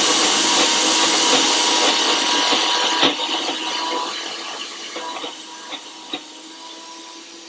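Nutri Ninja high-speed blender grinding a thick raw cashew hummus, with a few sharp knocks about three and six seconds in. The motor fades and winds down at the very end. The grinding still holds cashews that are not quite ground yet.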